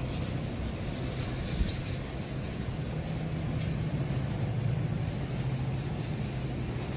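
Steady low mechanical hum with one sharp knock about one and a half seconds in.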